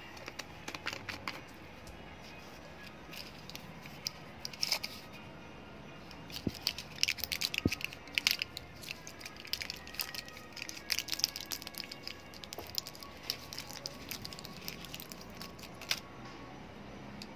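Packaging handled by hand: bursts of short crinkling and crackling clicks, thickest from about six to twelve seconds in.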